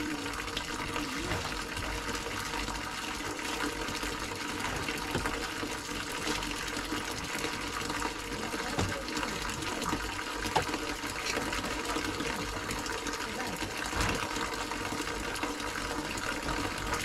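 Steady running water, with faint voices in the background.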